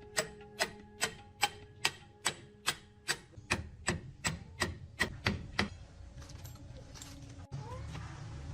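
Repeated sharp hammer-like strikes, about two and a half a second, that stop about six seconds in, followed by a low steady hum.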